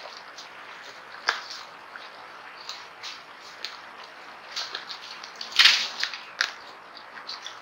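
Peccaries foraging in dry leaf litter: scattered crackles and crunches of dry leaves as they root and feed, with a louder burst of crunching about five and a half seconds in.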